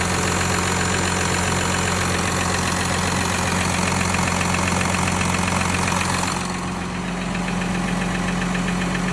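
Volkswagen Touareg 3.0 V6 TDI diesel (CRCA) idling cold with a steady rhythmic knock, the cold-engine knock the owner is checking. About six seconds in, the sharper upper clatter fades and the running turns duller.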